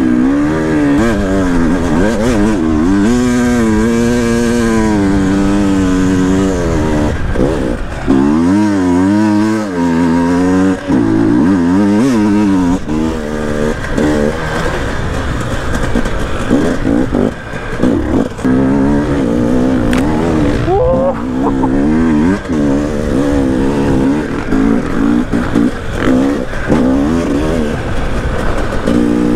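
KTM 300 EXC TPI single-cylinder two-stroke enduro engine being ridden off-road, its pitch rising and falling over and over with the throttle. Occasional short knocks come from the bike over rough ground.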